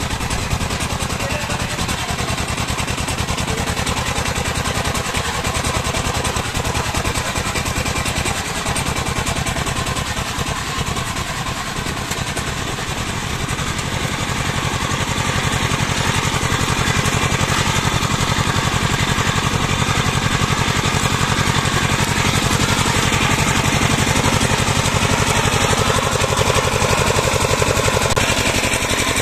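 Two-wheel power tiller's single-cylinder diesel engine running steadily under load with a fast, even pulse as it drags a levelling board through paddy mud; a little louder in the second half.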